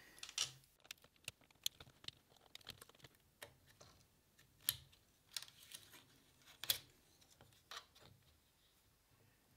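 Faint, scattered clicks and taps of small 3D-printed plastic parts and a screwdriver being handled, with a few louder clicks about five and seven seconds in.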